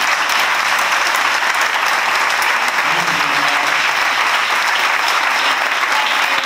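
Large audience applauding: dense, steady clapping from a standing crowd.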